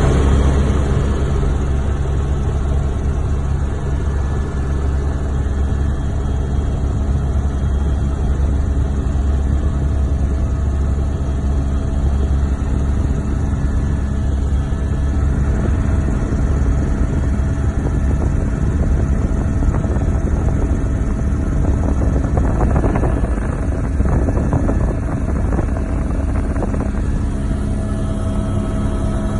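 Steady low engine noise of an aircraft in flight, with a few constant tones running through it and slight roughening between about 22 and 27 seconds in.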